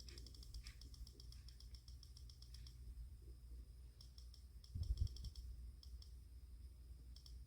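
Faint, fast, even clicking in runs over a low steady hum, with a soft thump about five seconds in.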